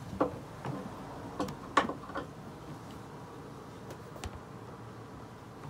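Floor planks being laid and pressed into place by hand: a few light clicks and knocks in the first couple of seconds, then a couple of faint ticks.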